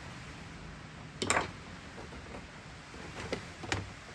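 A few small clicks and knocks from handling tools and wires at a fire alarm panel's terminals, the loudest a clatter about a second in, over a steady hiss of rain.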